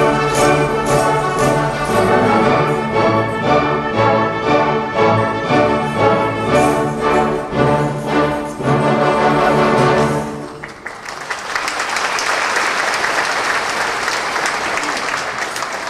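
Ballet orchestra playing a lively dance with a strong, regular beat. The music ends about two-thirds of the way through, and a theatre audience applauds.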